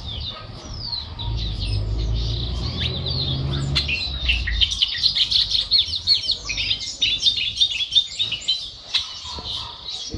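Male bobolink (charlatán) singing: a fast, jumbled string of bubbly, tinkling notes that gets denser and louder about halfway through. A low rumble sits under the first half.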